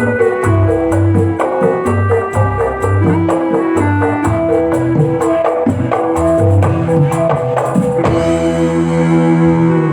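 Music with a steady drum beat, bass and quick, regular tambourine-like ticks under held melodic notes. About eight seconds in, the percussion drops out and a sustained chord rings on.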